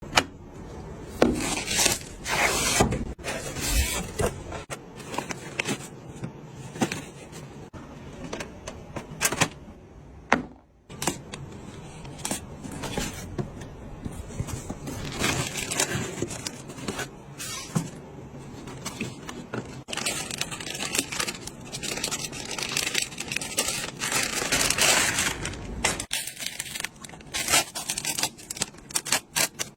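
Irregular clicks, knocks and scrapes of hard plastic and metal parts being handled and fitted together by hand, as in assembling a PC.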